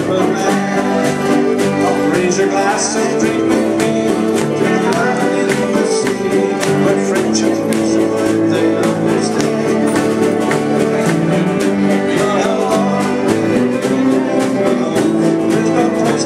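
Live acoustic folk band: a man sings over a button accordion, with strummed ukulele, acoustic guitar and upright double bass keeping a steady, even strumming rhythm.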